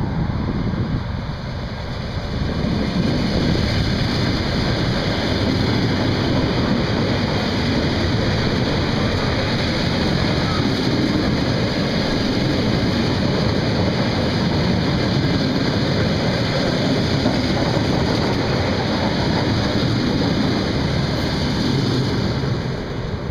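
Electric commuter train running past along the platform: a steady loud rumble of wheels on the rails and rushing air. It builds over the first few seconds as the train comes alongside, then holds level while the cars go by.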